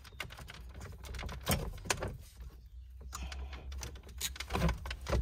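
Scattered clicks and light knocks of plastic dashboard trim pieces and clips being handled, over a steady low hum.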